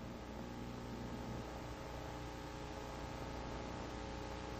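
Faint steady electrical hum with a layer of hiss, the background noise of an old film soundtrack, with no other sound.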